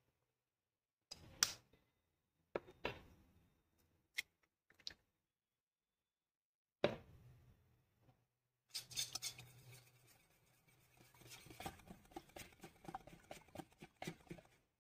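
Eggs knocked sharply several times against a stainless steel bowl and cracked open, followed, from about nine seconds in, by a hand wire whisk beating the eggs in the bowl, rattling and clinking quickly against the steel.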